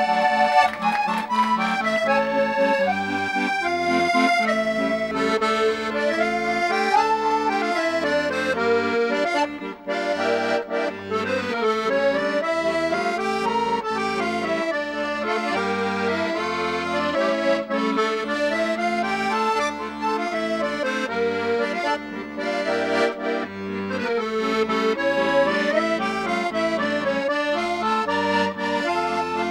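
Instrumental closing-theme music led by accordion, a moving melody over a sustained chord and a regular bass pulse, with a brief break about nine and a half seconds in.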